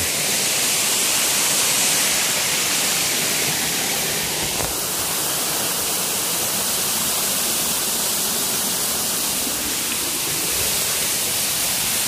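Steady rushing of flowing river water, an even hiss-like roar with no let-up; its tone shifts slightly about four and a half seconds in.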